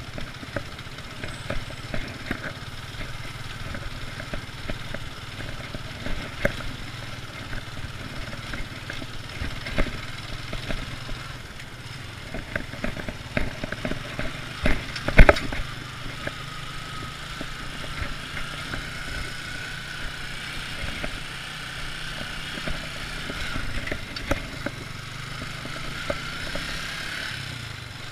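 Motorcycle engine running steadily, with scattered clicks and one loud sharp knock about fifteen seconds in.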